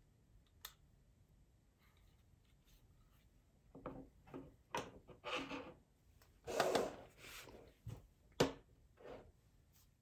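Hands handling a small aluminium LED light panel on a wooden tabletop. There is a single click in the first second, then from about four seconds in a string of rubs and scrapes with knocks, the sharpest knock near the end.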